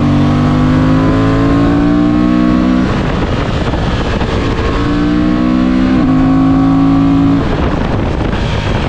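Parallel-twin adventure motorcycle engine pulling under load, its pitch rising slowly, easing off about three seconds in. It pulls again, with a brief dip for an upshift about six seconds in, and the throttle closes near the end, over steady wind and road noise.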